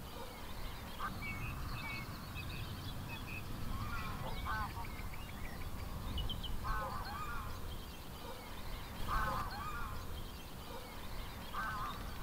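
Distant bird calls, short harsh calls repeating about every two to three seconds, five in all. Fainter small-bird chirps sound between them over a steady low outdoor rumble.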